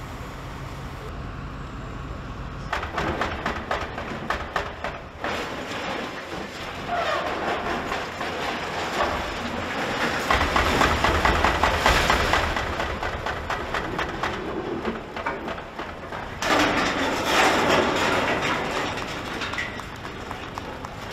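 Building demolition: a heavy machine's engine running low, then a long run of crunching, cracking and clattering debris as an excavator breaks up a building, loudest about ten seconds in and again near seventeen seconds.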